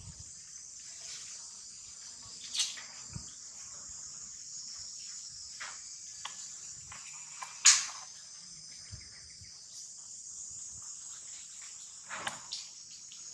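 Steady high-pitched chorus of insects, with a few sharp clicks or knocks on top, the loudest about eight seconds in.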